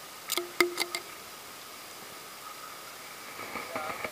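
Handling noises in the boat: a quick cluster of sharp clicks and knocks about half a second in, over a faint steady background drone.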